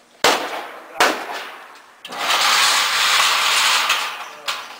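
Two sharp pistol shots about three-quarters of a second apart, each trailing off with room echo, then a steady rushing noise for about two and a half seconds.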